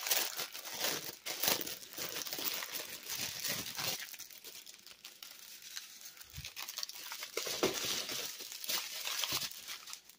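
Crinkling and crackling of the clear plastic film covering a diamond painting canvas as it is handled and pressed flat by hand, in irregular bursts with a quieter spell midway.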